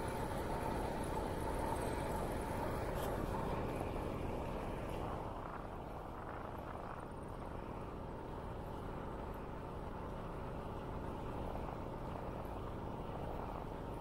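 Steady wind noise on the microphone, easing slightly about five seconds in.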